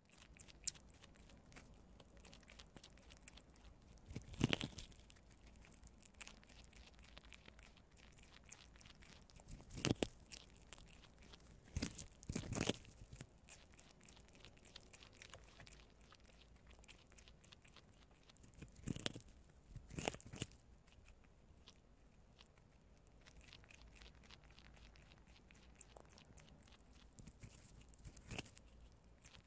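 Two prairie dogs gnawing kernels off a raw white corn cob: a steady run of small crisp crunches and bites, with louder clusters of crunching every several seconds.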